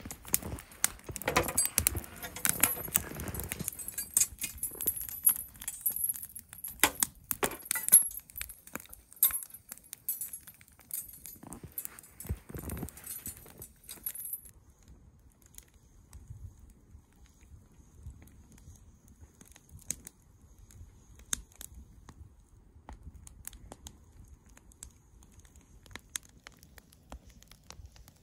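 Metal clinking and jangling as a steel camp tripod is set up and a cast iron Dutch oven is hung from it. About halfway through the handling stops, leaving only sparse faint crackles from the wood fire beneath the pot.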